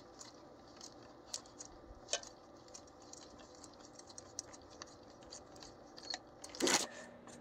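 Light, scattered clicks and clinks of hand tools being handled, such as a socket and extension, with a louder scraping clatter near the end.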